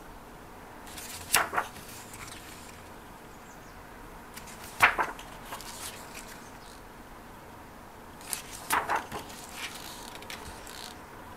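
Pages of a large hardcover photobook being turned by hand. There are three brief papery swishes: about a second in, around five seconds in (the loudest), and about nine seconds in.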